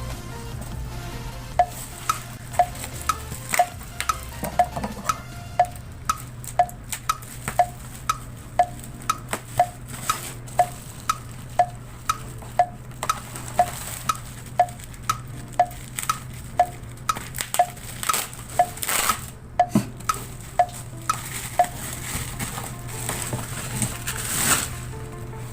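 Handling and rustling of the stabilizer's packaging over quiet background music, which carries a short plucked note about twice a second for most of the stretch.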